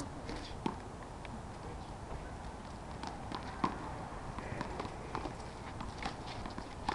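Handball rally: a small rubber ball slapped by hand and striking the concrete wall and asphalt court, a string of sharp slaps at irregular intervals, the loudest about three and a half seconds in.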